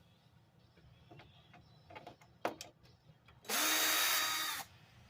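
Cordless screw gun running for about a second with a steady whine, backing a screw out of a TV's back panel, after a few light clicks and taps.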